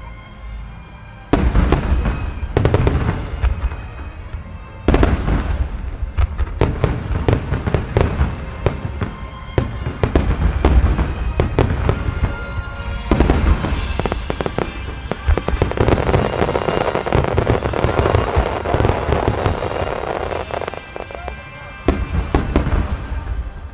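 Large aerial firework shells bursting in quick succession, each a sudden boom trailing off in a rumble. From about halfway through, a long dense stretch of crackling runs for several seconds before the booms return near the end.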